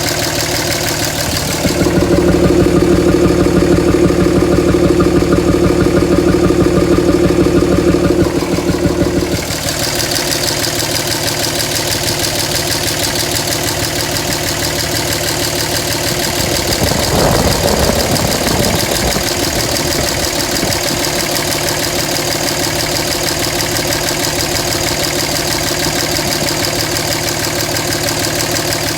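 Dodge Ram's 5.9 Cummins inline-six turbo-diesel idling with a rough idle. About two seconds in the sound turns louder and deeper for some seven seconds before settling back, with a brief rough noise a little past halfway.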